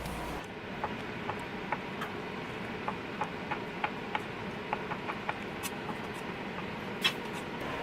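Steady hiss of a kitchen range-hood fan, with scattered light clicks and ticks from cooking in the pot.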